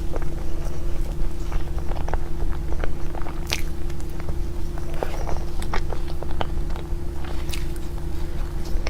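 Close-up eating sounds of a person biting and chewing cake, with irregular soft clicks and crackles, over a steady low electrical hum.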